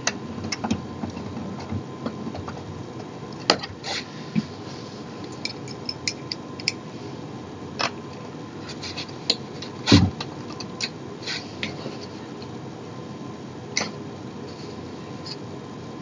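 Scattered clicks, light knocks and rubbing from office chair parts and screws being handled during assembly, with one louder knock about ten seconds in.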